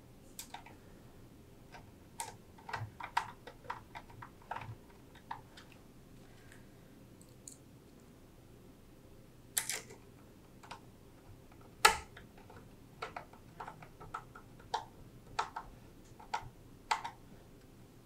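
Irregular small metal clicks and taps from a hand screwdriver and screws being fitted into the metal brackets of graphics cards in a GPU chassis drawer. The two loudest clicks come about ten and twelve seconds in.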